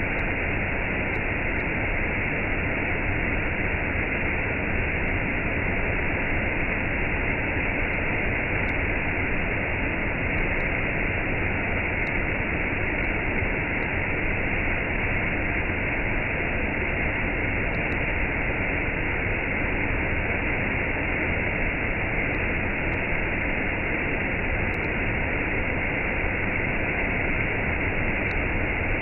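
Waterfall with a cascade: a steady, unbroken rush of falling water.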